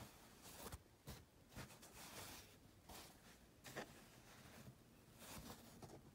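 Faint rustling of cloth face masks being handled, a few short soft swishes of fabric.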